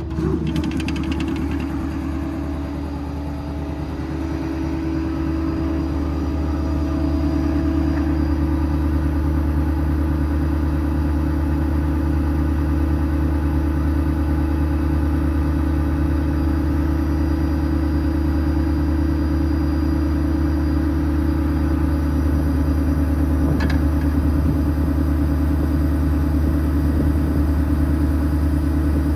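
Ford F-550's 6.7 Powerstroke diesel running steadily while driving the PTO-powered hydraulic air compressor, which is building air pressure; the sound swells over the first few seconds and then holds steady. A single short click comes about three-quarters of the way through.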